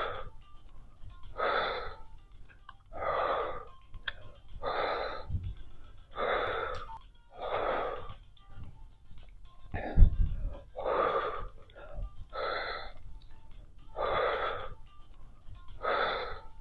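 A woman's heavy, wheezy breathing close to a headset microphone, one loud breath about every second and a half, in time with the effort of dumbbell raises. A low thump about ten seconds in.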